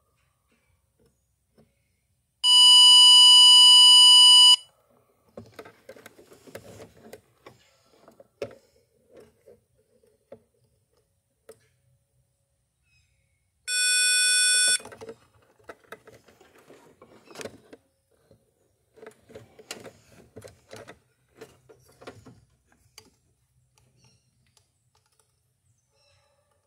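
Power Probe 4 circuit tester beeping as its probe tip is touched to the pins of a transmission wiring connector: a loud high-pitched beep of about two seconds, then a shorter, quieter, lower-pitched beep about ten seconds later. Between and after the beeps, the probe tip and connector click and scrape faintly as the tip is moved from pin to pin.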